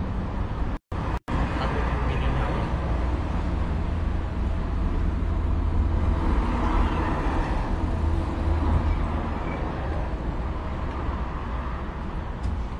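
Road traffic noise with a steady low rumble, swelling as a vehicle passes in the middle. The sound cuts out completely twice, very briefly, about a second in.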